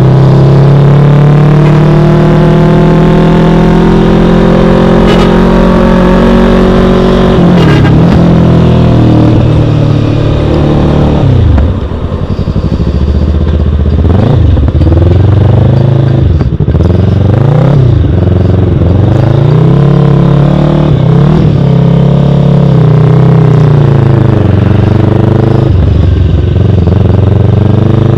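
Yamaha YZF-R3 motorcycle's parallel-twin engine, heard from the rider's seat while riding: a steady cruising note for the first several seconds, then repeated rises and falls in revs, before settling into a steady note again.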